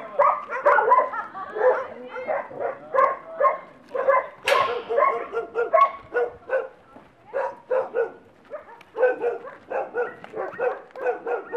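Many dogs in a shelter barking and yapping at once, in a dense run of short overlapping barks, with one sharper, shriller sound about four and a half seconds in.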